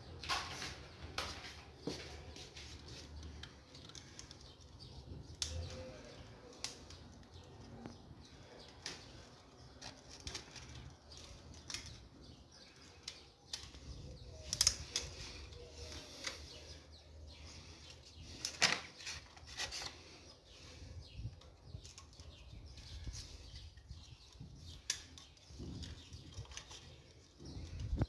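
Handling noise from wall light-switch mechanisms and their wires being worked in a wall box: scattered light clicks and taps with rustling, and a few louder sharp clicks about halfway through and about two-thirds of the way through.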